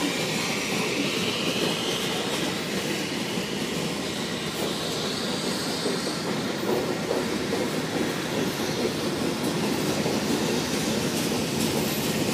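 Freight train cars rolling past: the steady rolling noise of steel wheels on the rails as tank cars, boxcars and gondolas go by.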